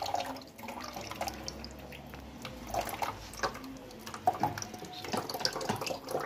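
Kitchen tap running a thin stream of water into a plastic mesh strainer while fingers rub dragon fruit pulp to wash the seeds free, with drips and splashes falling into the sink.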